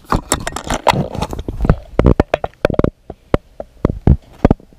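Camera handling noise: a run of irregular knocks and bumps with rubbing against a GoPro close to its microphone.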